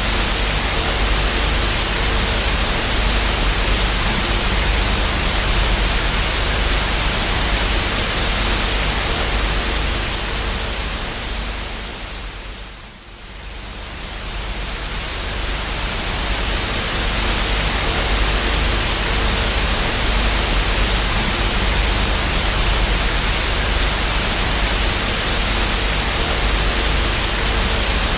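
Television static from an untuned TV with no signal: a steady, loud hiss with a faint low hum beneath. About halfway through it fades down and swells back up.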